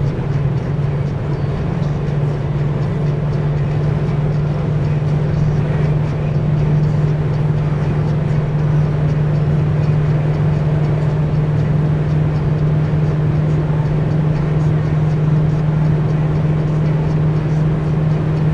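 Steady drone of a car cruising at a constant speed, heard from inside the cabin: a low engine and drivetrain hum that holds one pitch throughout, over even tyre and road noise.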